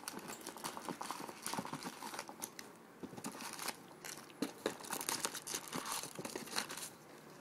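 Foil wrapper of a trading card pack crinkling and tearing as the pack is opened, in a run of irregular small crackles.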